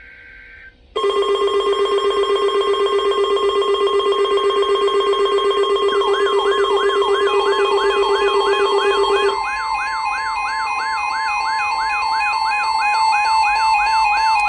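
Emergency weather alert tones: a steady alert tone, like the NOAA Weather Radio 1050 Hz warning tone, starts about a second in with a pulsing buzz layered under it. From about six seconds in a repeating rising siren-like warble joins, and the buzz stops about nine seconds in. This is the attention signal that announces a broadcast weather alert.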